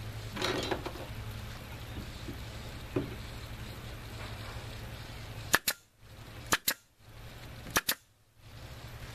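Pneumatic nail gun firing three times, about a second apart, each shot a sharp double crack as it drives a nail into wood.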